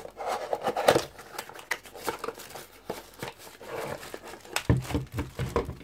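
Cardboard packaging box being opened by hand, its flaps scraping, and the phone holder's plastic bag crinkling as it is slid out of the box, with a few soft knocks about five seconds in.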